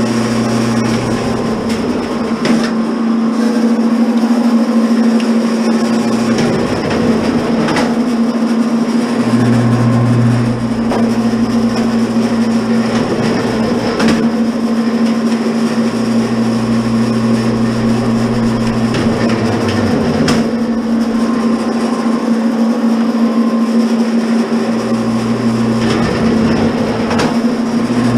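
Commercial electric wire stripper running steadily, its motor humming as thick insulated wire is fed through the rollers and blades. A deeper drone comes and goes several times over the steady hum.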